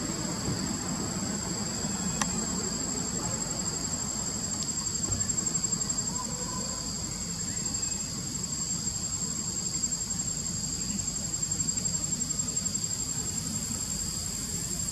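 Insects in the forest canopy make a steady, high-pitched whine in two tones, over a low background rumble. A faint short chirp comes about six and a half seconds in.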